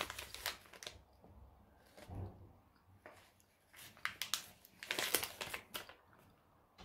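Crinkling of a plastic snack wrapper being handled, in short crackly spells just after the start and again about four to six seconds in.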